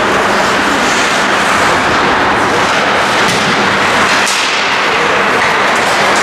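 Steady noisy din of an ice hockey game heard through a rink-side microphone, with a low hum underneath and a few brief sharp clicks such as sticks or the puck.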